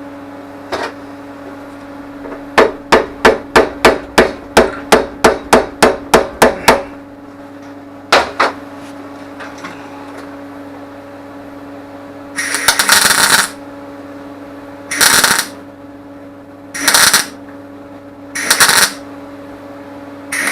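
A hammer striking metal in a quick run of about fourteen blows, roughly three a second, with single blows before and after, over a steady low hum. In the second half come four separate bursts of harsh noise, each under a second long.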